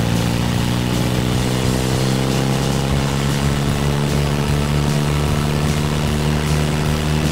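BMW R1150R Rockster's boxer-twin engine running at road speed, its pitch rising slightly over the first few seconds and then holding steady, with a steady rush of wind over it.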